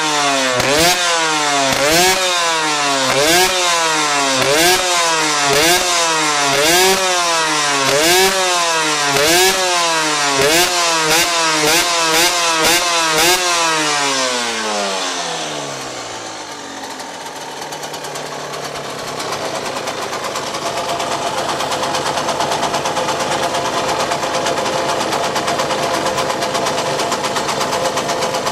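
Yamaha DT 125 SM's two-stroke single-cylinder engine revved in quick, repeated throttle blips, each rising and dropping about every 0.7 seconds. About fourteen seconds in the revs fall away and the engine settles into a steady run.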